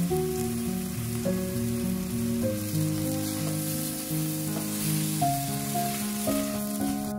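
Sausage pieces sizzling in a frying pan with a little water added to draw out their fat, under background music of held notes that change in steps.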